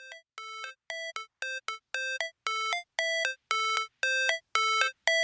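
Music intro: a repeating figure of short, bell-like synthesizer notes that grows steadily louder.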